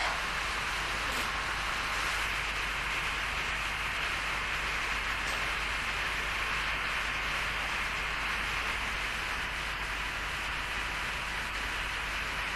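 Steady, even hiss with a low hum underneath.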